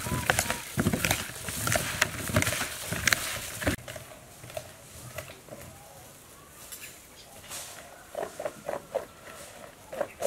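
Chunks of guava coated in salt, sugar and chili powder being tossed and stirred in a plastic bowl with a spoon and a plastic-gloved hand: a dense rustle of many short clicks and scrapes that cuts off sharply about three and a half seconds in. After that, quiet outdoor air with scattered short bird calls.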